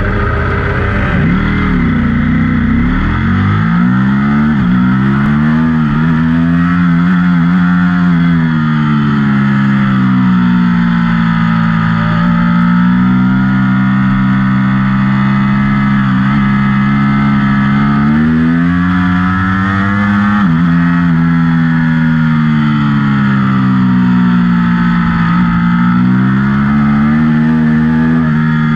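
A 2019 Ducati Panigale V4's V4 engine, heard from onboard, launches hard off a race start and accelerates through the gears. Its pitch climbs and drops with each shift and with braking and throttle through the corners, including a sharp step about 20 seconds in.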